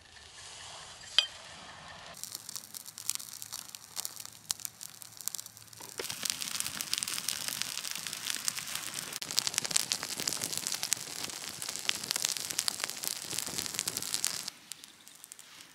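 Birch-bark tinder cylinder packed with resin and birch shavings burning in open flame, crackling with rapid small pops. One sharp click comes about a second in; the crackling grows louder about six seconds in and drops away sharply near the end.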